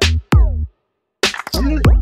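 Electronic hip-hop backing music: deep bass and drum-machine hits with falling pitch slides, stopping briefly in the middle before the beat comes back.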